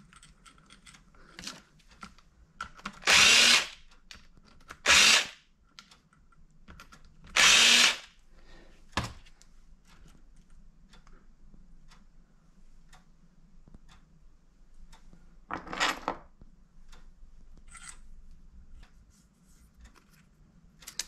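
Handheld power tool run in four short bursts: three close together in the first eight seconds and one more about two-thirds of the way through. Small clicks and knocks come between the bursts.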